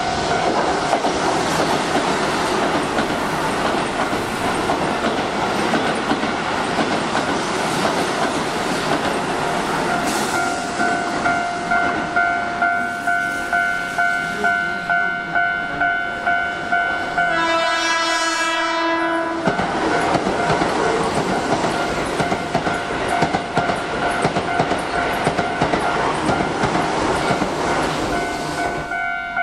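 Keihan electric trains running through at speed, wheels clattering over the rail joints, while a level crossing warning bell rings steadily. A train horn sounds once for about two seconds a little past the halfway point.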